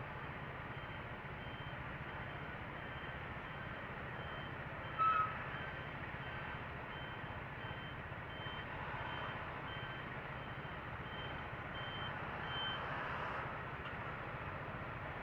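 Scooter engine idling steadily at a standstill, with a repeating series of short high beeps, a little over one a second, and one loud short beep about five seconds in.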